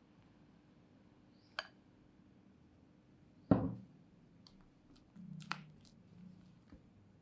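Silicone spatula scraping whipped cream out of a glass bowl into chocolate muffin batter. A light tap comes about one and a half seconds in, and a sharp knock, the loudest sound, about three and a half seconds in as the glass bowl is set down on the wooden table. Near the end there is a soft squelch of the spatula folding the cream into the batter.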